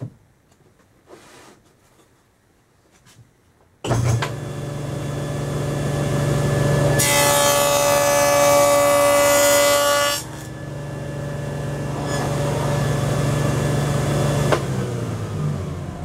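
Table saw switched on about four seconds in and running steadily, then cutting a dado across a board for about three seconds, louder with a high ringing whine while the blade is in the wood. Switched off near the end and winding down.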